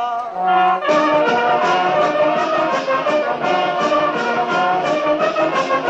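Instrumental break of a Neapolitan folk song: a band with brass plays a tune with a regular beat, the full band coming in loudly about a second in.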